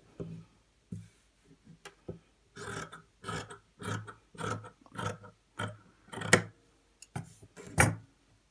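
Long-bladed dressmaking scissors cutting through cotton-type fabric, a steady run of snips about two a second.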